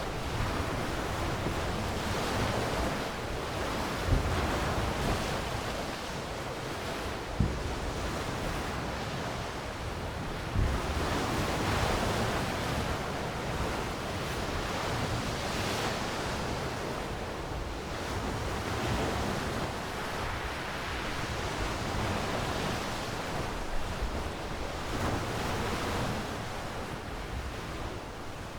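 Ocean waves washing on a shore, the surf swelling and easing every few seconds, with a few brief low thumps.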